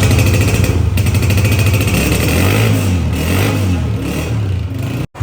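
Honda CG 125's single-cylinder four-stroke engine running loudly, with throttle blips through the middle making its pitch rise and fall several times.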